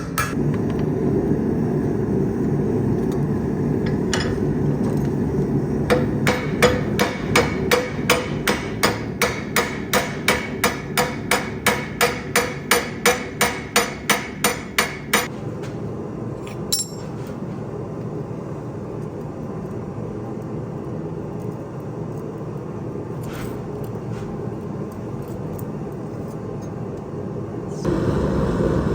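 Hammer blows on hot steel over an anvil: a steady run of ringing strikes, about three a second, for roughly nine seconds, then a few single knocks. A steady low rumble runs underneath and gets louder near the end.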